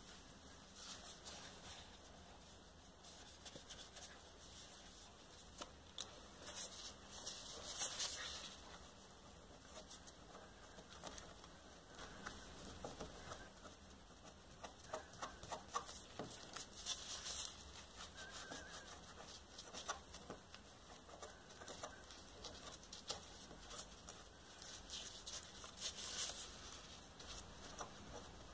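Faint rustling and scuffing of gloved hands wiping an inked acetate drypoint plate with a soft wipe, with a few louder rustles about 8, 17 and 26 seconds in. This is the stage where surface ink is wiped off, leaving ink in the scratched lines.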